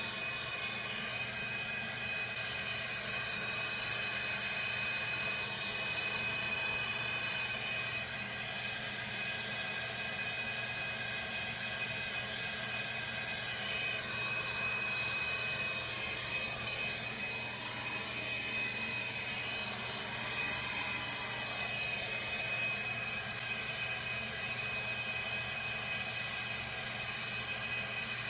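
Plumbing torch flame burning steadily while heating a 2-inch copper ball valve joint for soldering: an even, unbroken hiss with a thin steady high whistle over it.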